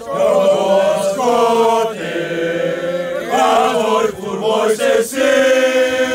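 A group of men singing a school alma mater together without instruments, in long held notes.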